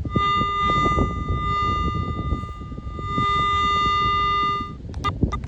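Metal detector sounding a steady high target tone over a target reading about 53 to 55, with a lower tone coming and going beneath it; the tone stops near the end, followed by a few knocks. Wind buffets the microphone throughout.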